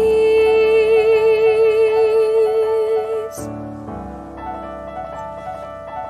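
Soprano holding one long note with vibrato over piano accompaniment; she stops about halfway through and the piano carries on alone with sustained chords.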